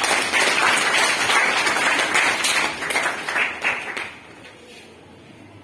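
A class of schoolchildren applauding with dense hand-clapping that dies away about four seconds in.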